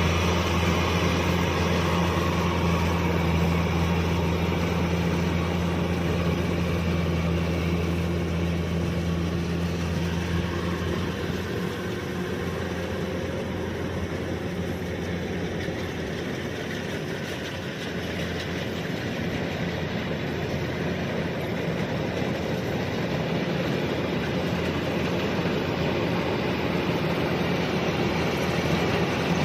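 Kubota DC-105X combine harvester running, a steady mechanical drone with a strong low hum. It eases off a little past the middle and builds again toward the end.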